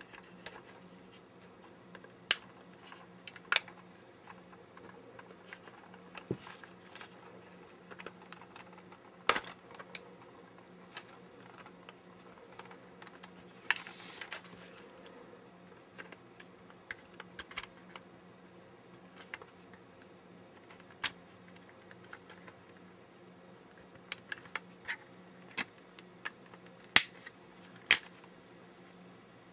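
Plastic pry tool working the rubber surround off a camera's viewfinder: scattered sharp clicks and short scrapes of tool against rubber and plastic, with a longer scrape about fourteen seconds in.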